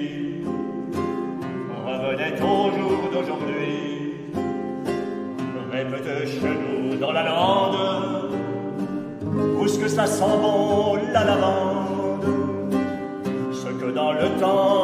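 Men's choir singing to acoustic guitar accompaniment, with several voices holding chords under a moving melody line.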